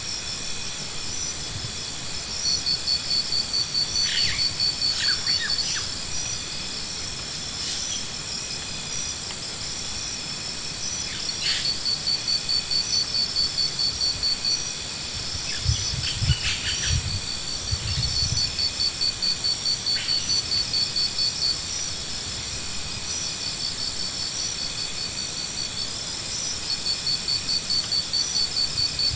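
Insects calling steadily in high tones, with a rapid pulsing trill that comes in phrases a few seconds long and returns several times. A few low thuds sound near the middle.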